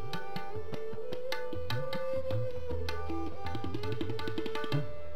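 Instrumental interlude in Sikh kirtan: tabla playing a rhythm of quick strokes under a held, slowly moving harmonium melody, with a tanpura drone.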